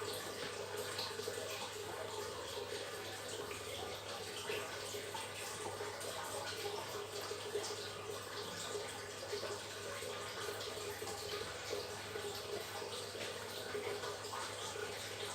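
Steady, even rushing background noise with a low hum underneath. It stays unchanged throughout, with no distinct event standing out.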